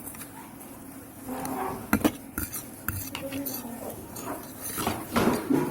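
Eating utensil clinking and scraping against a dish while pansit kanton noodles are stirred and picked up. There are sharp clinks about two seconds in and again near the end.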